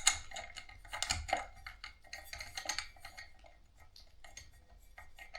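Small metal fan parts clicking and clinking as a pin is worked into the ceiling fan's downrod and mounting bracket: an irregular run of light taps, loudest at the very start.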